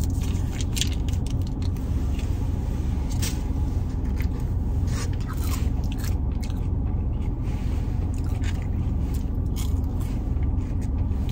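Sauce packet being squeezed out, then crinkle-cut fries picked from a plastic container and chewed with short, scattered crunches. Under it runs a steady low rumble of the car interior.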